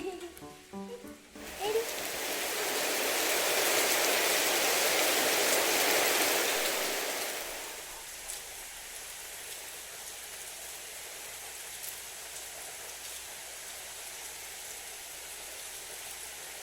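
Background music stops about a second in; a loud rushing noise then swells for several seconds and dies down, leaving a steady, fainter hiss with a few faint ticks, of the kind made by running water or rain.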